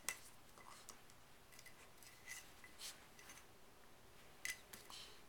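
Near silence broken by a handful of faint, sharp clicks spread out over a few seconds, from a puppy nosing and mouthing a hard chew bone.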